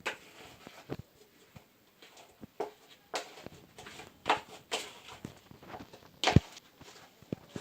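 Homemade slime being worked and scraped off the bottom of its container: irregular sticky smacks and scrapes, with one louder knock about six seconds in.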